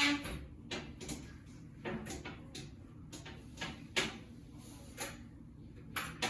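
Irregular light knocks, clicks and brief rustles of household objects being handled and set down, about one every second, over a low steady room hum.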